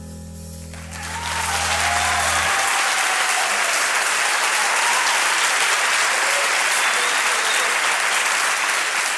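Concert audience applauding, the clapping breaking out about a second in and quickly building to steady, full applause. Under it, the band's final held note on the electric bass rings on and dies away after about two and a half seconds.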